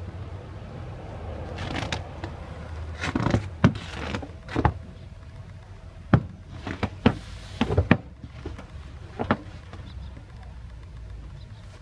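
Footsteps crunching in fresh snow: about a dozen irregular sharp crunches, bunched between about two and nine seconds in, over a low steady rumble.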